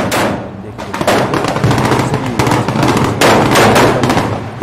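Rapid small-arms gunfire: many sharp shots in quick, irregular succession, with a steady low hum underneath.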